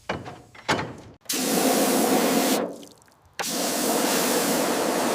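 A couple of short knocks, then two long bursts of hissing spray from a nozzle, the first about a second and a half long and the second starting about three and a half seconds in and running on.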